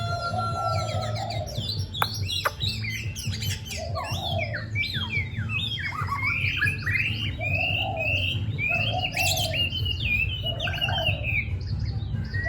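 Pet songbirds singing: many quick, sliding chirps and trills high up, over a lower warbling call repeated several times, with a steady low hum underneath.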